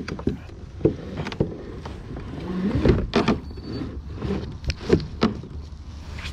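Hard plastic knocks and clunks on a fishing kayak's hull and motor mount as the motor drive is lowered into the water, with a short rising tone a little before halfway.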